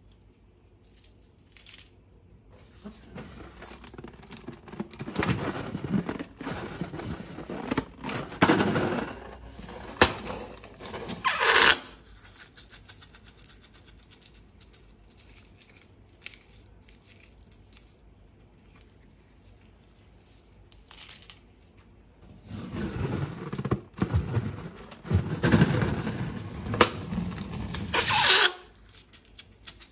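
Hands working slime ingredients out of balloons and piping bags: two long bouts of crackly, scraping handling noise full of small clicks. The first starts about three seconds in and the second about twenty-two seconds in, and each ends with a short, sharp burst.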